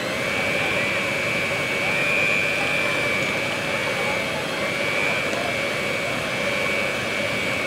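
Electric hand mixer running with a steady high whine, its beaters kneading a stiff flour-and-water dough.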